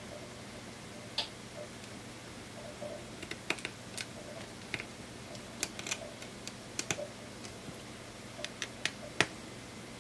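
Small tools and tiny screws clicking and tapping against the iPhone 6S's internal parts as it is screwed back together: irregular sharp little clicks over a faint steady hum.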